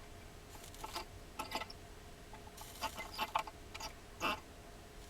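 Light clicks and taps of small tools working on a circuit board during soldering, irregular, with a few brief hisses.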